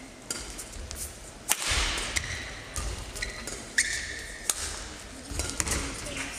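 Badminton rally: a string of sharp racket strikes on the shuttlecock about a second apart, with short squeaks of shoes on the court mat and the thud of footfalls between them.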